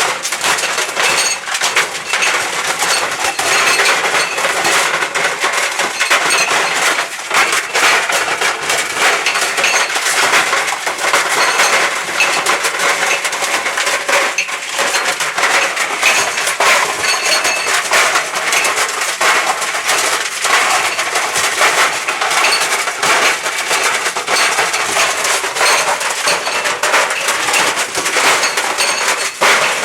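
A Dell laptop tumbling in a running clothes dryer drum, a continuous fast clatter of hard knocks and clinks as it is broken up.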